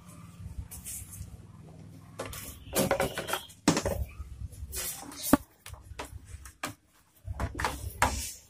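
Knocks, clatters and scrapes of an opened LED TV's panel and metal back chassis being handled and lifted, with the sharpest knock about five seconds in.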